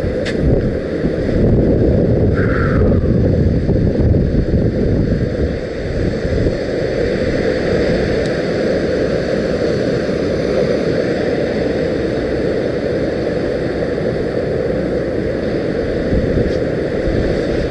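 Wind buffeting the microphone over the steady wash of ocean surf, with a brief higher-pitched sound about two and a half seconds in.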